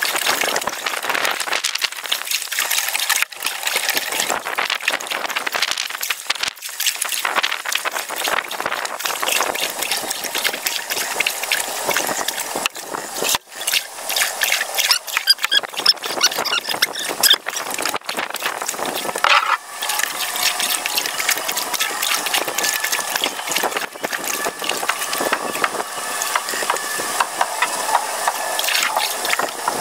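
Canoe being paddled: the paddle splashes with each stroke, and water drips and laps along the hull with a constant crackle of small clicks.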